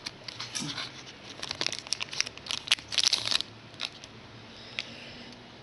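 A trading-card pack's wrapper being torn open and crinkled: a quick run of sharp crackles that stops after about three and a half seconds, followed by a few faint ticks.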